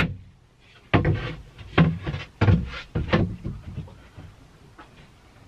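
A person clambering up into an attic. A sharp click comes first, then about a second in four short, heavy bursts of effort and scuffing follow, roughly a second apart. These fade to faint rustling.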